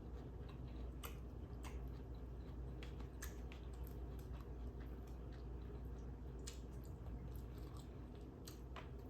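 Close-miked chewing of food: soft, wet mouth clicks and smacks at irregular intervals, over a steady low hum.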